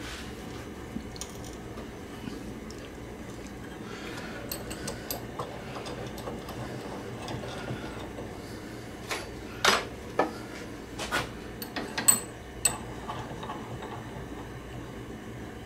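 1908 Stanley Victor No. 741 vise worked by hand: faint clicks and scrapes as its screw and sliding handle are turned. In the second half come several sharp metal clinks as steel stock is set and closed in its jaws.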